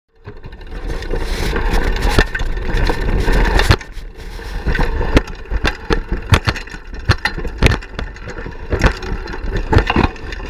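Cannondale Super V 700 Comp mountain bike riding over a dirt trail: rolling tyre noise with many sharp knocks, rattles and crunches of twigs and leaves, and wind buffeting the microphone.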